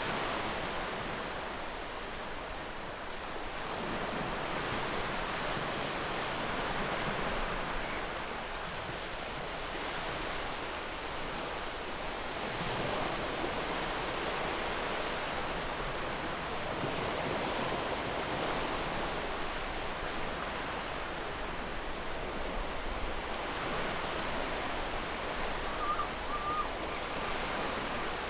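Ocean surf: a steady wash of waves that swells and eases slowly every several seconds.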